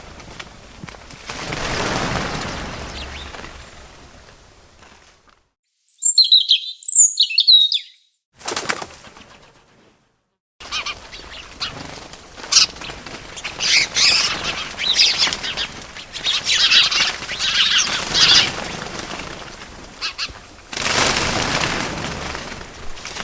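Bird sounds: bursts of wings flapping, two short high chirps about six seconds in, then a stretch of busy high twittering, and another burst of flapping near the end.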